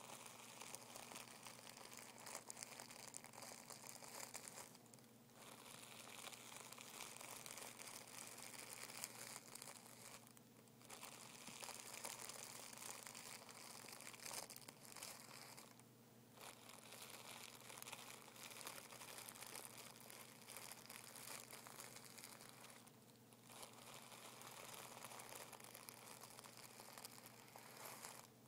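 Fingertips rubbing and scratching over a crinkled sheet of tissue paper: a quiet, continuous crinkling and rustling that stops briefly four times.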